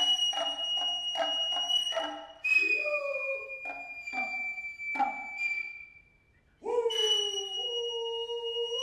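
Noh hayashi music: a nohkan bamboo flute holding shrill, high piercing notes over sharp strikes of tsuzumi hand drums and the drummers' long drawn-out calls. The flute breaks off just past the middle for a short near-silence, then comes back in with a held call beneath it.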